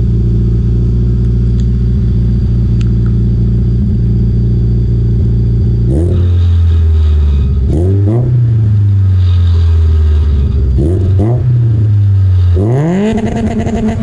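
Toyota 4A-GE 16-valve four-cylinder engine exhausting through headers and an HKS muffler held onto the tailpipe. It idles steadily, then about six seconds in gets a few quick throttle blips, and near the end a longer rev is held high.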